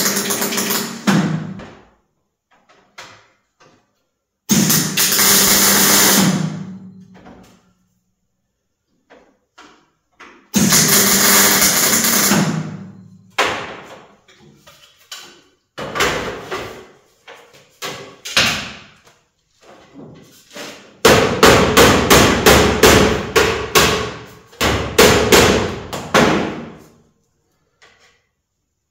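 Hammer blows on sheet metal: scattered single strikes, then a quick run of many strikes a few seconds before the end. Three longer, loud noisy bursts earlier on each last about two seconds and die away.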